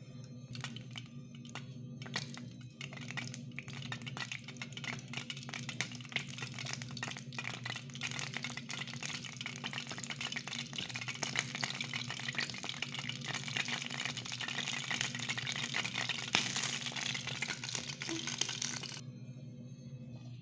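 Hot oil in a miniature steel pan crackling and sizzling as food fries. The crackle grows denser and cuts off abruptly near the end.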